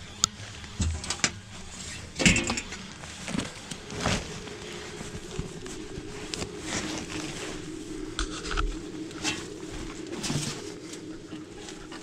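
Old padded clothing, fabric and plastic bags being pulled about and rustled by hand, with a sharp loud rustle about two seconds in. From about four seconds in, a pigeon coos steadily underneath the handling.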